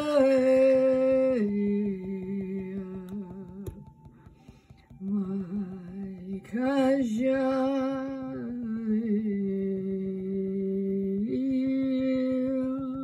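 A woman's voice chanting long, held wordless tones, stepping between a few low pitches, with a short pause about four seconds in.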